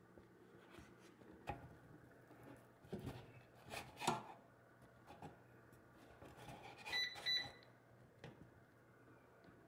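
Faint scrapes and taps of a slotted spatula against an air fryer basket and a wooden cutting board as baked crescent rolls are lifted out. Two short electronic beeps sound about seven seconds in.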